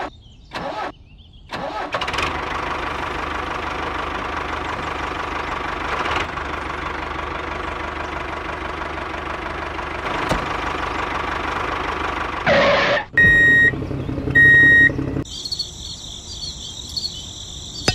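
Mini tractor's engine starting with a few short bursts, then running steadily for about ten seconds. Near the end come two short high beeps, then a high pulsing chirr like insects.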